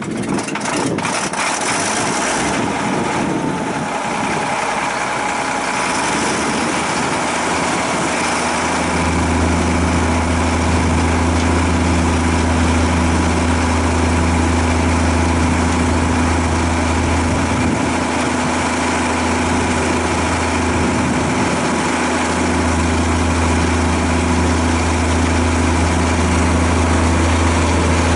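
Caterpillar E-series motor grader's diesel engine, a direct-start diesel, catching and running unevenly at first, then settling into a steady idle about nine seconds in.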